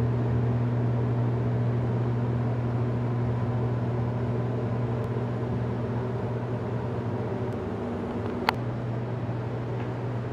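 A steady low machine hum, like a running motor or fan, with one sharp click about eight and a half seconds in.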